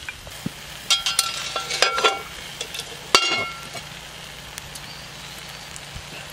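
Cast iron Dutch oven lid clinking against the pot and its wire bail handle, then set down with one louder ringing clank just after three seconds. Underneath, steak frying steadily in a cast iron skillet.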